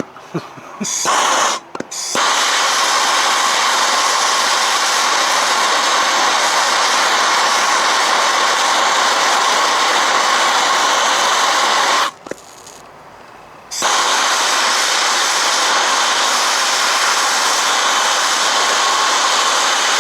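Steady hissing rush of a heating tool held on seized lower-unit bolts soaked in penetrating oil, to heat them loose. It stops for about two seconds a little past the middle, then starts again.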